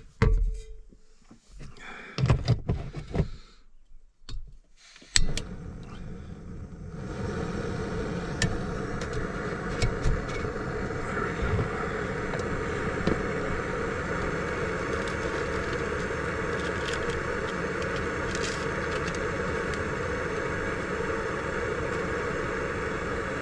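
A few sharp clicks and knocks from handling the cup and stove parts. Then, about seven seconds in, the gas burner of a Jetboil backpacking stove lights and runs with a steady rushing hiss, heating water for coffee.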